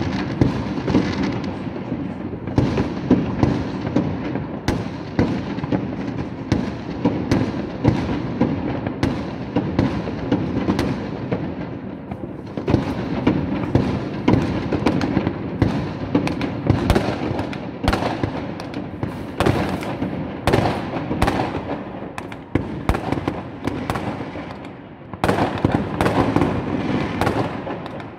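Many fireworks going off at once: a constant rumble of distant bangs and crackling with frequent sharp pops. A short lull near the end gives way to a dense run of louder, closer bangs.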